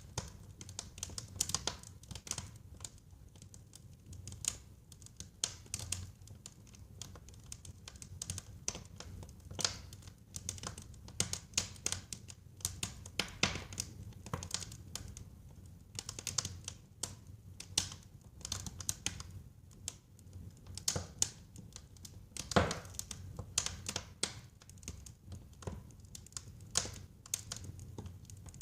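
Wood fire burning in a fireplace: irregular crackles and snapping pops over a low, steady rumble of the flames. One sharp, louder pop about three-quarters of the way through.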